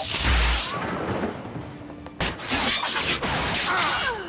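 Film sound effects of a magical duel: a sudden spell blast with a deep boom, then a second blast about two seconds in, each trailing off into rushing noise.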